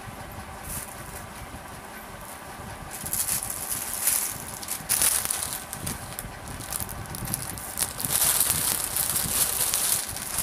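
Clothes being handled and rustling, in two spells of a few seconds each, with scattered light clicks.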